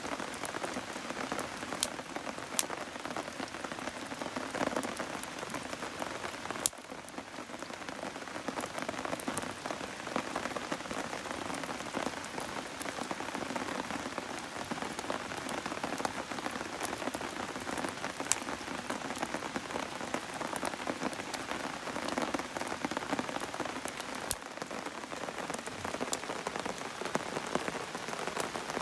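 Steady rain falling, with scattered sharp ticks.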